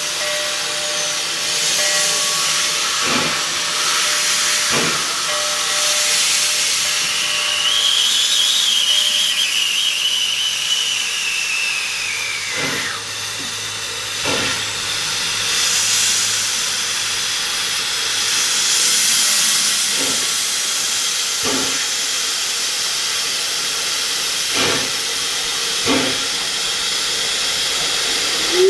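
Steady hiss of steam escaping from a wood-burning 1870s 2-6-0 steam locomotive, with a faint high whistling tone that drifts up, then slides down and stops a little before halfway. A few sharp knocks are scattered through it.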